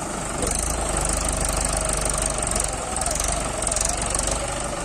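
Mahindra 575 DI tractor's diesel engine running under load while it pulls a loaded trolley through soft sand. It gets louder about half a second in and stays steady.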